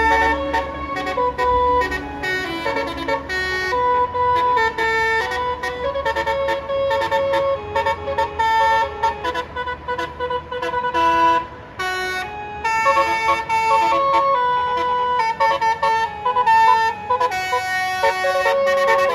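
Bus's Basuri telolet horn, a multi-tone musical horn, playing a fast melody: loud horn notes stepping up and down in pitch, starting suddenly and running on with only brief gaps. A low engine idle sits underneath for roughly the first half.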